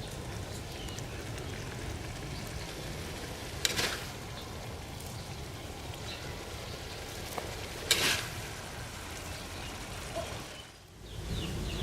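Food frying in hot oil with a steady sizzle, broken by two sharp knocks about four seconds apart.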